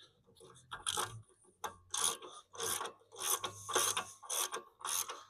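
Ratchet wrench worked back and forth, clicking in a run of short strokes roughly twice a second as a nut is wound on.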